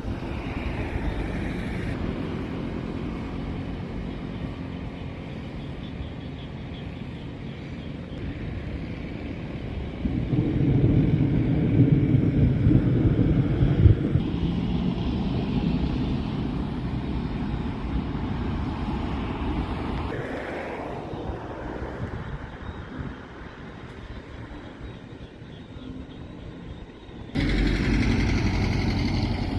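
Heavy vehicle engines running steadily, in several short takes that change abruptly, louder for a few seconds in the middle and again near the end.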